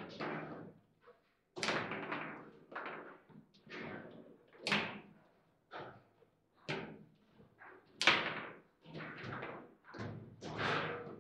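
Foosball table in play: a dozen or so sharp knocks and clacks at irregular intervals as the ball is struck by the rod figures and hits the table, the loudest about eight seconds in.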